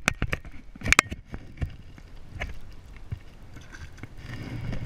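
Sharp clicks and knocks of a hand-held bass being handled at the water's edge, then water splashing and swirling as the fish is released by hand into shallow water.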